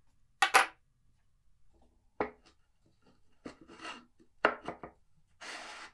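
Several sharp wooden knocks and clacks, then a short scraping rub near the end, as the plywood dado jig is lifted away and a plywood test piece is fitted into the freshly routed dado.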